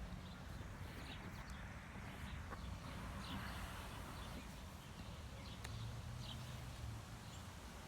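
Faint outdoor ambience: scattered short bird chirps over a low steady hum.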